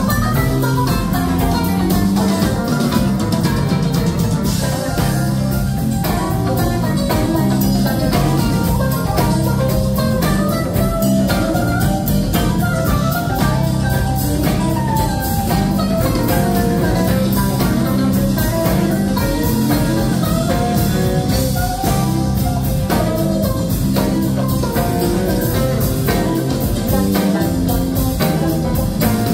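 Live rock band playing an instrumental jam: electric guitar lines wandering over a steady bass pattern, drum kit with busy cymbals, and keyboards.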